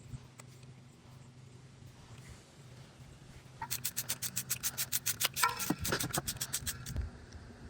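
Ratchet wrench clicking fast and evenly, about seven clicks a second, as a 10 mm bolt holding a variable valve timing solenoid is run down. The clicking starts a little past halfway and stops about seven seconds in.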